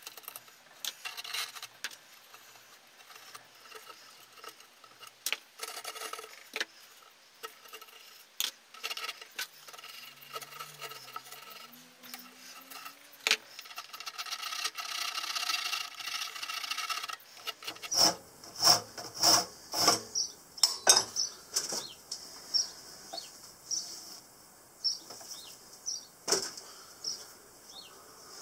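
A small metal hand tool scraping and rasping at the soft refractory lining around a kiln's door opening: intermittent scratching strokes that become louder and sharper about two-thirds of the way through.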